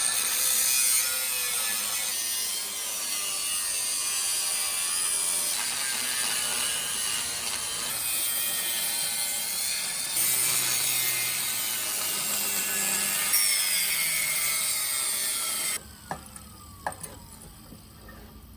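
Ratcheting and rasping of hand tools working on the car's exhaust muffler mounting, steady and loud, cutting off abruptly about 16 seconds in, followed by a few faint clicks.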